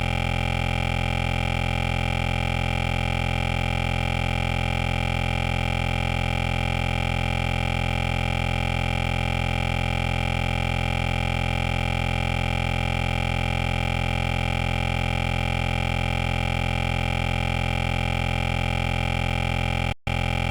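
A steady, unchanging hum made of several tones, heaviest in the bass, with a fast throb; it cuts out for an instant near the end.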